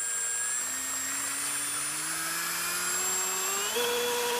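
RC jet boat's electric motor and jet pump running under throttle: a whine that rises slowly in pitch, then steps up to a higher steady note near the end, over the hiss of the pump's water jet spraying from the stern nozzle.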